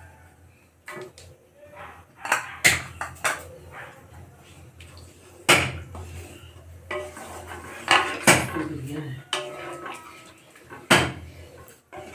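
Wooden spatula stirring a thin curry in a metal kadhai, knocking and scraping against the pan's sides and bottom: a dozen or so sharp knocks at uneven intervals, with softer scraping between them.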